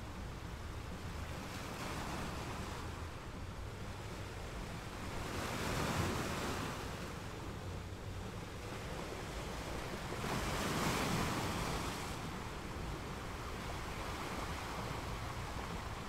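Ocean surf: waves breaking and washing up the shore in slow surges, the two biggest about six and eleven seconds in.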